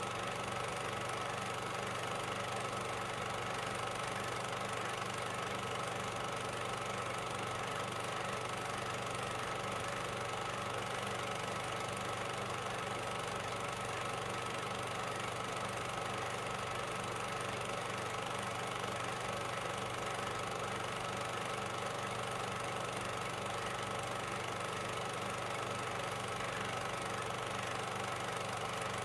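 A steady, unchanging hum with a constant hiss over it, with no separate bangs or other events.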